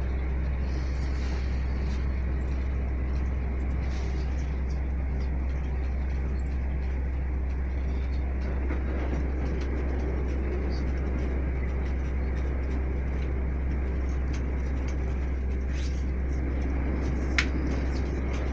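Steady running noise of a passenger train at speed, heard from inside the carriage, with a single sharp click near the end.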